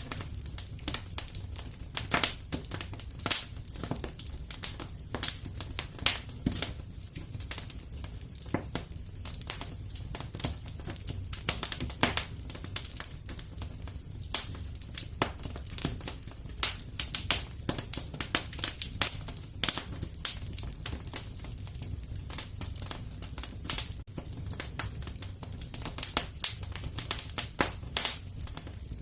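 Wood fire in a fireplace crackling, with irregular sharp pops and snaps, some louder than the rest, over a steady low rumble of the flames.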